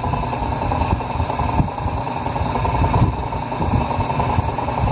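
Small exhaust fan's capacitor-run motor running steadily with its blade fitted and drawing air: a steady whir over an uneven low rumble. The fan has just been wired up and is working.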